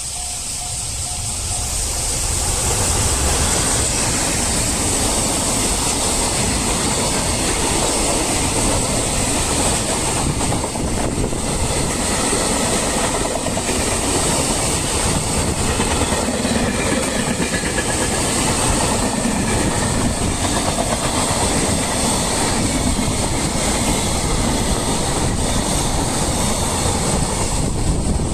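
A long freight train rolling past over the level crossing, the wheels of its wagons clattering over the rail joints. The noise builds over the first few seconds and then stays loud and steady.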